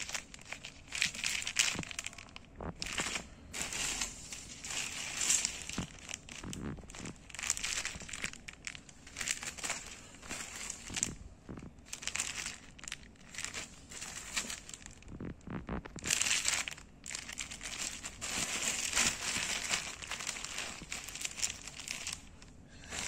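Thin clear plastic packets crinkling and crackling as they are picked up, squeezed and shuffled through by hand, in irregular bursts.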